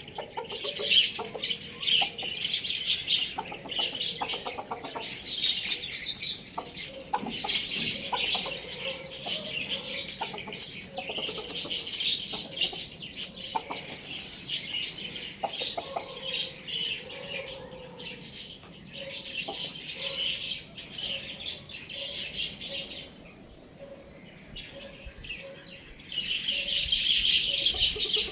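Many small birds chirping busily and without pause, with wings fluttering now and then. The chirping eases off briefly about three quarters of the way through, then comes back loudly.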